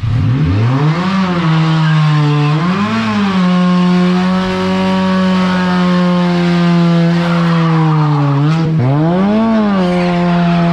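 Car engine revved up twice, then held at high revs for several seconds while doing a burnout, with the rev dropping briefly and climbing again near the end.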